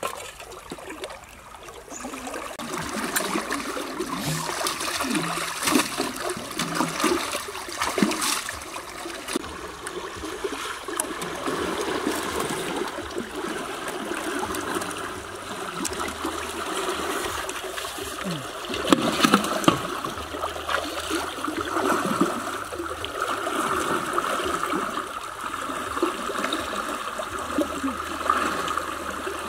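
Water sloshing and splashing with scattered wet slaps and knocks: live eels moving in a shallow, water-filled metal basin, and people wading through a shallow stream.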